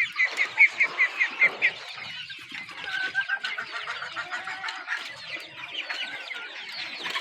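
A flock of desi chickens calling and clucking. A rapid run of short, high calls of about four or five a second fills the first couple of seconds, then many overlapping clucks and chirps.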